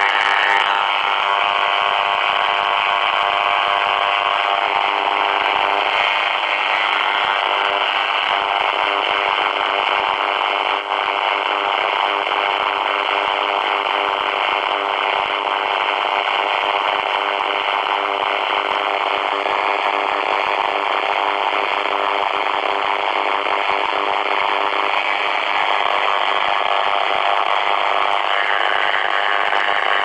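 Portable multiband radio receiver putting out loud, steady interference: a dense buzzing hiss with several steady tones running through it. The uploader takes it for radio jamming from a 5G base station. One whistle-like tone drops slightly about half a second in and rises again near the end.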